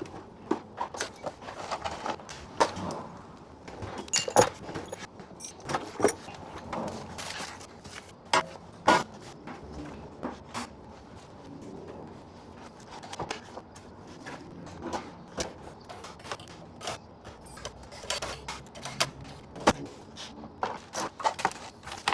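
Irregular clatter and knocks of tools and small items being handled and set down, with a few louder clunks.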